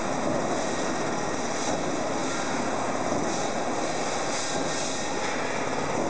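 Cable tray roll forming line running steadily under test: an even hum of electric drive motors and gearboxes turning the forming rolls.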